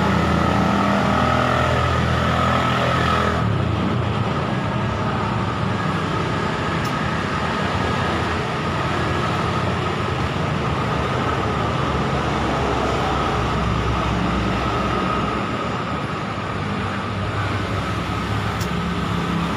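Road traffic noise: a steady rush of passing vehicles, with an engine running close by for the first few seconds.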